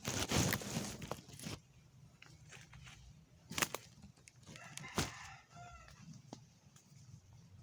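A rushing gust of wind for the first second and a half, then two sharp knocks and a faint chicken call, like a rooster crowing, about five seconds in.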